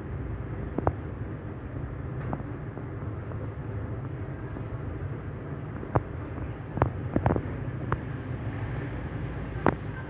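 Panasonic F-EY1511 ceiling fan running at speed: a steady low whir of the motor and the blades moving air. A few sharp, irregular clicks come through it, most of them bunched between about six and eight seconds in.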